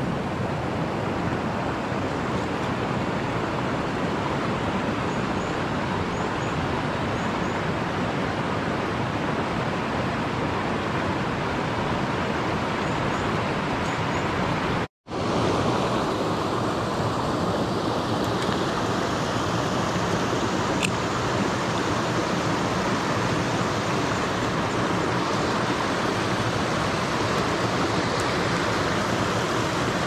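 Mountain stream water rushing over rocks and a small cascade, a steady wash of noise. It cuts out for an instant about halfway through, then carries on.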